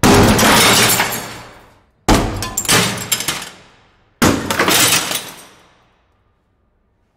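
Glass shattering three times in a row, about two seconds apart, each a sudden crash followed by a trail of falling, tinkling shards that dies away over a second or two.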